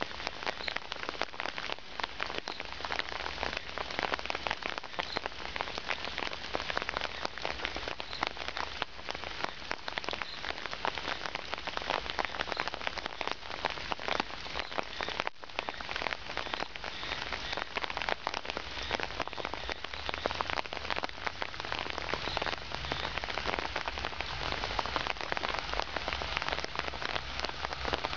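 Steady rain, a dense crackling patter of many small drop hits.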